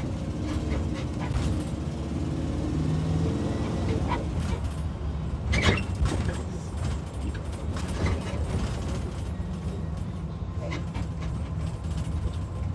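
Gasoline engine of a 2022 IC CE school bus running steadily, the bus having an exhaust leak at a faulty catalytic converter. A short, sharp sound cuts in about halfway through.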